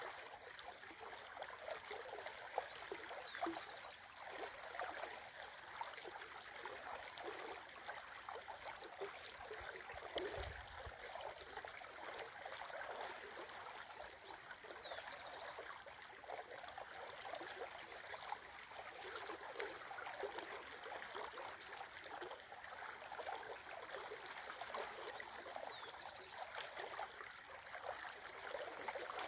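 Shallow river flowing over its bed, a steady rushing and trickling of water. A bird gives a short high call three times, about every eleven or twelve seconds.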